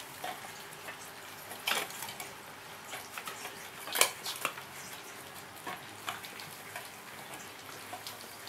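Puppies eating from stainless steel food bowls, the bowls clinking and rattling in scattered knocks against their wooden stand. The loudest clank comes about four seconds in.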